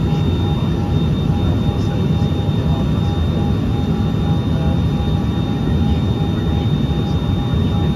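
Steady cabin roar of a Cessna Citation XLS jet in flight: its two rear-mounted Pratt & Whitney Canada PW545B turbofans and the airflow make a low, even rumble with a thin steady whine above it.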